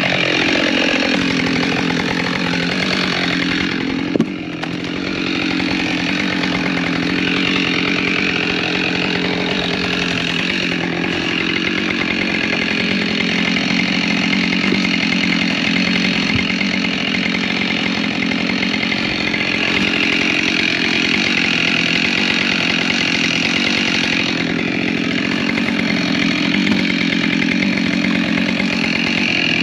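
Chainsaw running at full throttle, cutting steadily through wood, with a brief drop in load about four seconds in. The chain has its rakers filed down a couple of strokes, so it grabs and pulls into the cut.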